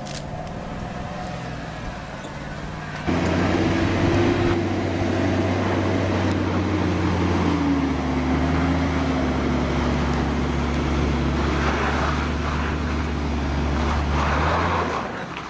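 Hummer H3 engine running at low speed as the SUV crawls along a dirt trail, a steady low drone. About three seconds in it gets suddenly louder, its pitch drops a little around eight seconds in, and it fades away just before the end.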